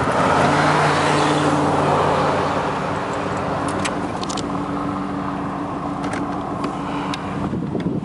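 1955 MG TF1500's 1.5-litre four-cylinder engine running steadily as the open roadster cruises, with wind rushing past, strongest in the first couple of seconds.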